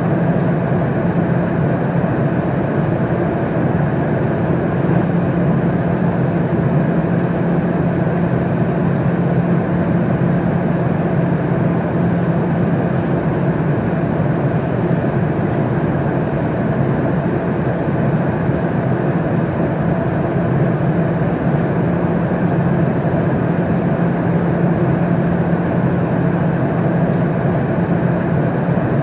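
Steady airplane cabin noise in flight: a constant, even rush with a deep hum, not changing over the whole stretch.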